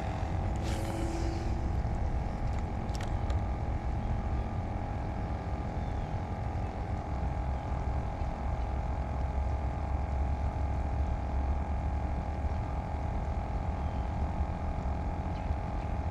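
Steady low motor hum with a faint steady whine over it.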